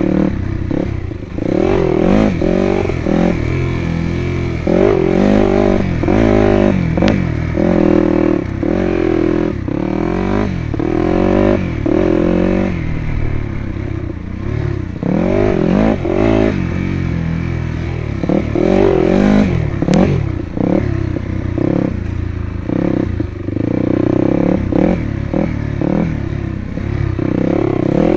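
Off-road dirt bike engine riding a single-track trail, its pitch rising and falling again and again as the rider works the throttle, with clatter from the bike over rough ground.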